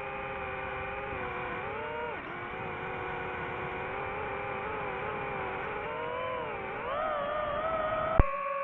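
Drone motors and propellers whining in flight, the pitch dipping and rising with the throttle and climbing near the end. About eight seconds in there is a sharp click, and a steady, unchanging hum takes over.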